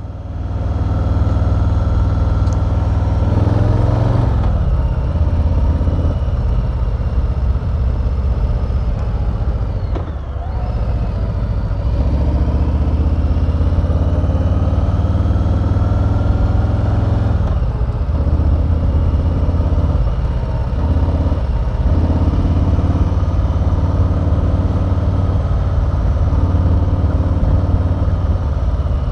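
2020 Harley-Davidson Street Bob's Milwaukee-Eight V-twin running loud under way, the engine note dipping and climbing again about three times, near 3, 10 and 18 seconds in.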